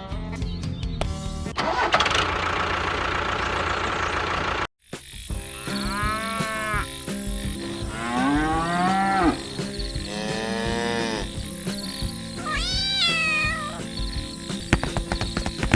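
Noisy, music-like sound at first, then after a brief cut four drawn-out animal calls, each arching up and then down in pitch.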